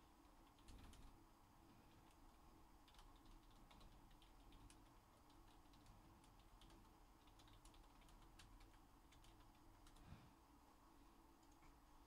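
Faint typing on a computer keyboard: soft, irregular key clicks.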